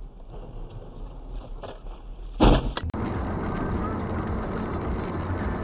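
A sudden loud bang from a car collision about two and a half seconds in, then steady road and engine noise of a car driving on a snowy road, heard from inside the car.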